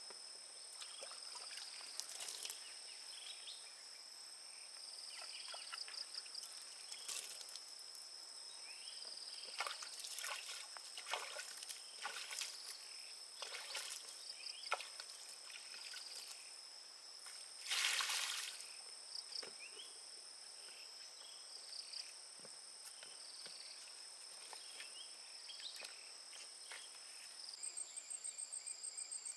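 Steady high trilling of crickets or similar insects, with scattered small splashes and sloshes of water and mud. One larger splash comes about two-thirds of the way in. Near the end a pulsing insect trill of about four beats a second sets in.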